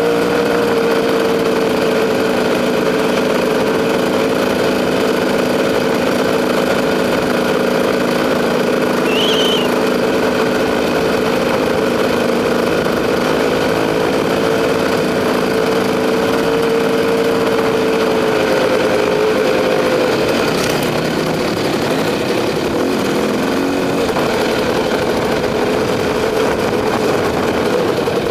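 KTM enduro dirt bike's two-stroke engine running steadily at a cruising pitch, easing off about twenty seconds in.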